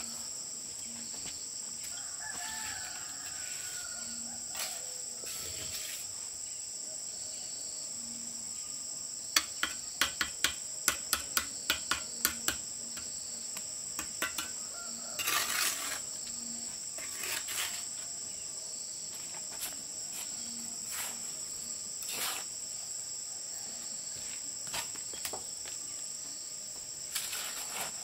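A brick trowel tapping and scraping on bricks and mortar as bricks are laid: a quick run of about a dozen sharp taps about ten seconds in, then scattered scrapes and knocks. Insects keep up a steady high-pitched drone, and a rooster crows a few seconds in.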